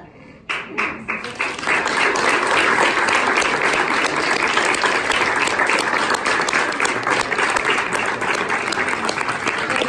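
Audience applause: a few scattered claps about half a second in, building within a couple of seconds to full, steady clapping from the crowd.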